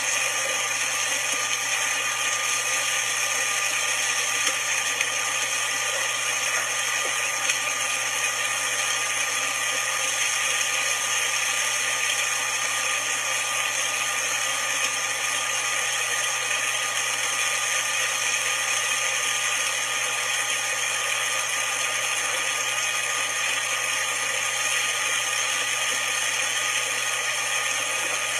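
Magic Bullet blender motor running steadily, blending soaked almonds with water into almond milk.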